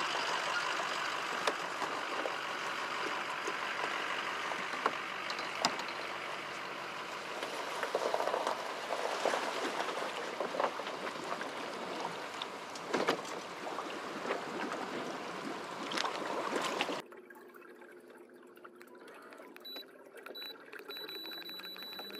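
Water rushing and splashing along a kayak's hull as it moves, with a few small knocks. About seventeen seconds in it cuts to a much quieter stretch of gentle water, with a faint high steady tone near the end.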